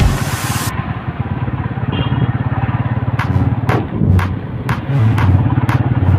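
Motorcycle engine running at a steady cruise, heard from the bike being ridden. From about three seconds in there is a regular sharp tapping, about twice a second.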